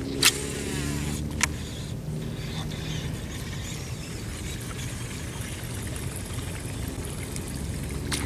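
Steady low hum of an engine running at a distance, with two sharp clicks in the first second and a half.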